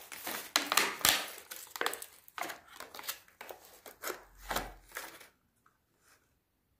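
Packaging and a plastic selfie stick being handled and unpacked: a quick run of short rustles, scrapes and clicks that stops about five seconds in.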